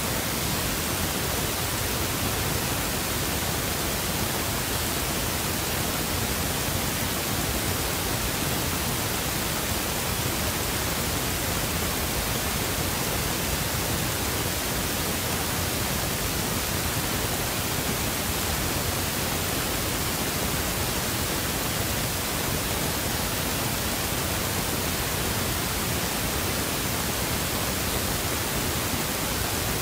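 Steady, unchanging static hiss spread evenly across all pitches, with no other sound standing out from it.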